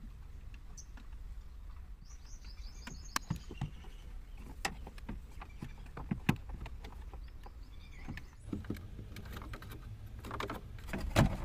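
Scattered plastic clicks and knocks as wiring connectors are plugged into the back of a car Android head unit and the unit is worked into the dashboard, over a low steady hum; the loudest knock comes near the end. A bird chirps a quick series about two seconds in.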